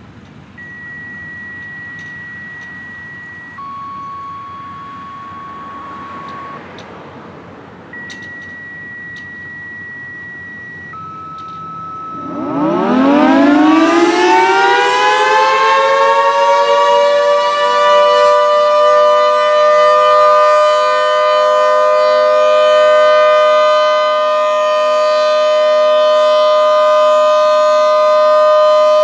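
A few long steady beeps switching between a higher and a lower pitch. About twelve seconds in, a Federal Signal 2T22B dual-tone tornado siren winds up with a steep rising howl, then holds a loud, steady two-tone chord.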